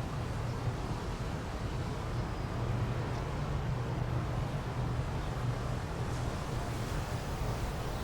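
Steady outdoor background noise: an even hiss with a constant low hum underneath.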